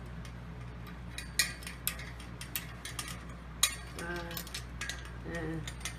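Small metal parts of an artificial palm tree, its silver clips and fittings, clicking and clinking as they are handled and fitted. Two sharp clicks stand out, about a second and a half in and again near four seconds.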